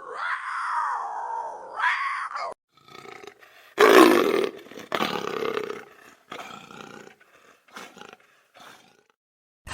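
Black panther sound effect: a pitched yowl that rises and falls, then a series of short big-cat roars and snarling growls of varying loudness, the loudest about four seconds in, stopping shortly before the end.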